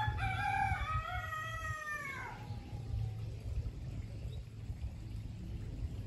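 A rooster crowing once, a drawn-out call of about two and a half seconds that falls in pitch at the end.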